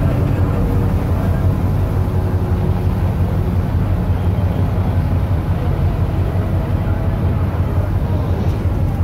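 Tugboat diesel engines running hard under heavy load, a loud, steady, deep drone.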